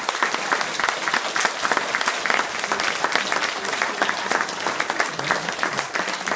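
A hall full of schoolchildren applauding: dense, sustained clapping.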